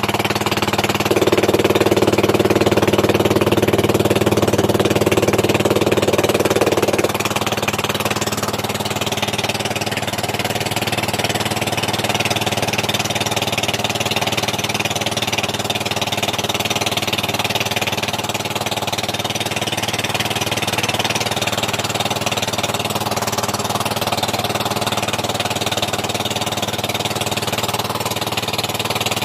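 Motor of a small outrigger boat running steadily under way, its drone a little quieter after about seven seconds.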